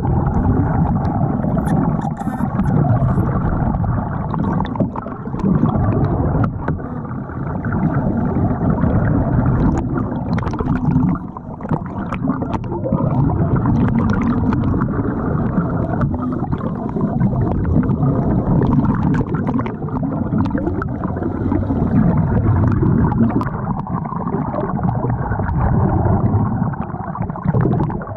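Water moving and gurgling as heard underwater: a muffled, low rushing that swells and eases every few seconds, with bubbles and scattered small clicks.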